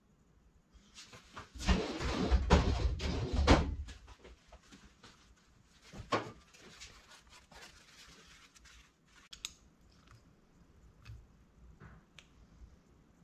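Handling noise from a turbocharger centre cartridge being moved and held on a plastic parts tray: a burst of rustling and knocking in the first few seconds, a sharp click about six seconds in, then scattered light clicks and taps.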